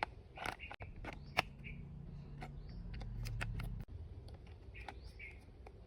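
Sharp clicks and knocks of a plastic toy gun and its packaging being handled during unboxing, with short high chirps in the background and a low hum that swells for about two seconds in the middle.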